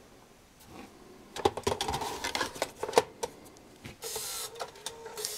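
A CD changer magazine is slid into a Bose Lifestyle 20 music center, with a quick run of plastic clicks and clatter. The changer mechanism then whirs twice briefly as it loads a disc to play.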